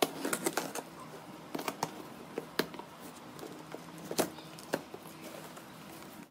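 Packing tape being picked at and peeled off a cardboard carton, then slit with a knife and the box flaps pulled open: a string of irregular crackles, rips and taps over a faint steady hum.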